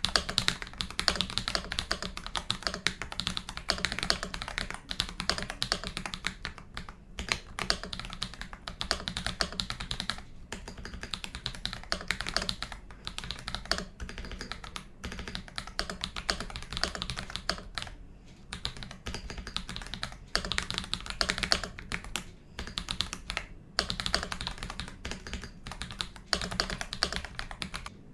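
Continuous typing on an Akko 5075B Plus mechanical keyboard fitted with Akko CS Wine White switches: a dense run of key clicks, broken by a few brief pauses.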